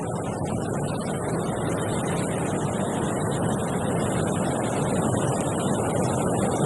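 Wind blowing steadily through a tree, a dense rushing noise that slowly grows louder, with no distinct creak standing out.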